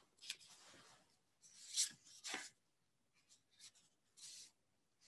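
Faint rustling and rubbing in about five short bursts, the kind of handling noise made when someone shifts things close to the microphone.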